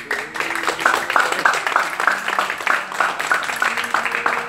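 Small audience applauding: a dense, irregular patter of hand claps.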